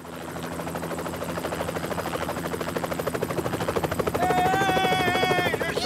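Cartoon helicopter's rotor chopping in a fast, even beat, growing louder as it approaches. About four seconds in, a long high held tone joins it and drops in pitch at its end.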